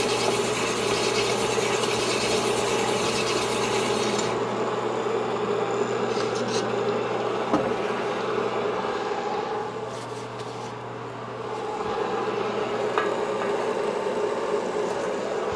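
A Sunnen honing machine's stones rasp against the bore of a two-stroke Yamaha 250 cylinder as the cylinder works on the spinning mandrel. The rasping stops sharply about four seconds in, leaving the machine's steady hum.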